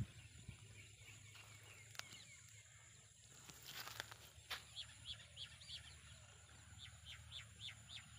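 A bird calling faintly: a quick run of about five short, high, falling notes about five seconds in. A few soft clicks come and go over a low, quiet background.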